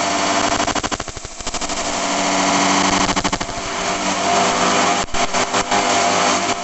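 A motor running steadily with a fast rattling pulse. It dips about a second in, then builds back up, with a few abrupt breaks near the end.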